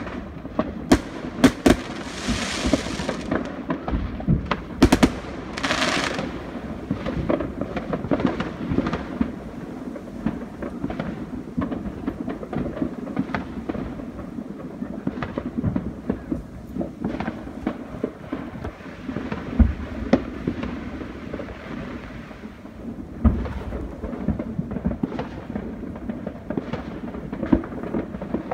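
Fireworks going off around the neighbourhood: a continual run of bangs and pops over a low rumble, the loudest cracks in the first five seconds and one more about two thirds through. Two short crackling hisses come a few seconds in.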